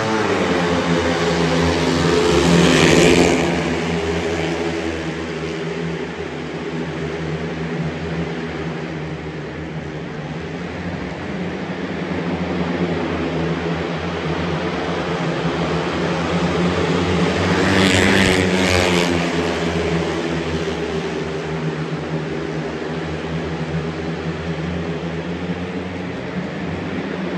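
Four 500cc single-cylinder speedway bikes racing: the engines pull away from the start at full throttle, then run on as the pack laps the track. The sound is loudest twice, a few seconds in and again about eighteen seconds in, as the bikes pass close by.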